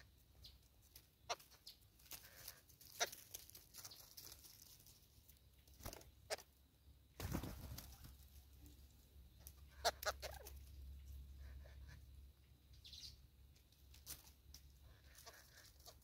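Faint scattered taps and scratches of a crested francolin moving and pecking at apple pieces on a wooden tree stump, with a louder rush of noise about seven seconds in.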